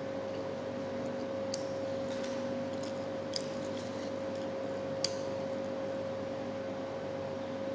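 Steady background hum with a constant tone. A few short, sharp clicks and smacks from chewing rise above it, the clearest about three and a half and five seconds in.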